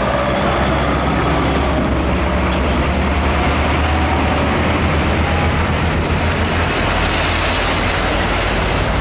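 Heavy diesel trucks passing close by on a highway: a steady, loud low engine drone mixed with tyre and road noise.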